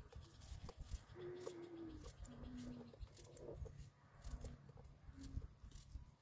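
Dove cooing faintly. A longer, slightly falling note about a second in is followed by a lower, shorter coo, and two more short low coos come later. Faint scattered ticks and taps sound underneath.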